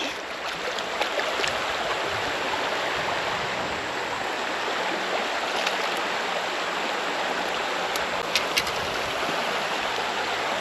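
Steady rush of flowing creek water in the current, with a few faint clicks about eight seconds in.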